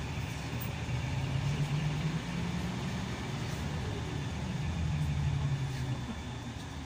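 Scania K340EB coach's five-cylinder diesel engine heard from inside the passenger cabin under way, a low drone that swells about a second in and again about five seconds in, then eases off near the end.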